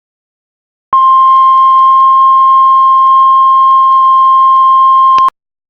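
Heart monitor flatline: a single loud, steady high-pitched beep tone starts about a second in and holds unbroken for about four seconds, then cuts off abruptly with a click. The unbroken tone is the monitor's signal that no heartbeat is being detected.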